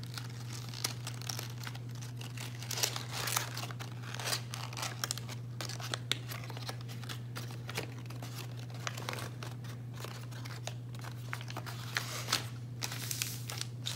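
A crumpled sheet of paper being unfolded and smoothed flat by hand: irregular crinkling and crackling that comes and goes, over a steady low hum.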